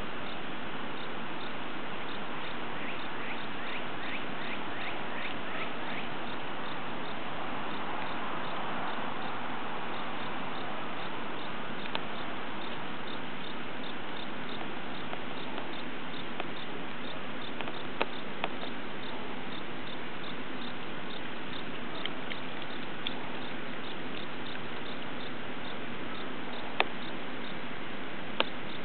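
Steady outdoor background hiss with a faint, evenly repeated high ticking throughout and a few sharp clicks, the loudest two near the end.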